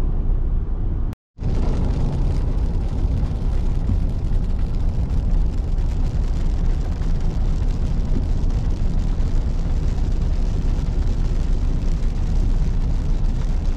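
Steady road and wind noise inside a moving car, heaviest in a low rumble. It breaks off for a moment about a second in where the recording is cut.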